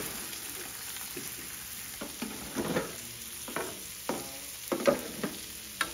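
Pork roll slices and diced potatoes sizzling on a flat-top griddle. Metal tongs and a spatula scrape and tap on the griddle surface about seven times from about two seconds in.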